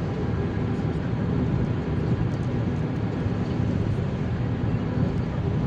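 Steady low rumble of a car driving at speed, heard from inside the cabin: tyre and engine noise.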